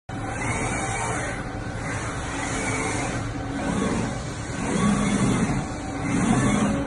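Lagun L-1000 vertical machining center running: a steady mechanical hum with a low whine that swells twice in the second half.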